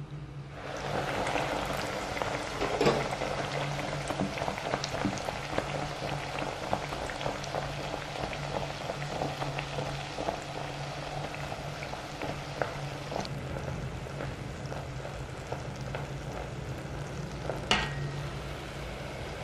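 Food sizzling and crackling in hot frying oil. The sizzle starts suddenly about half a second in, as food goes into the oil, and then carries on steadily, with a couple of sharper clicks.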